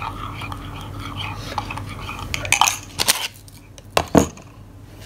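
Metal spoon stirring a hot drink in a ceramic mug, with light clinks against the sides, then a few louder clinks and knocks about two and a half to four seconds in.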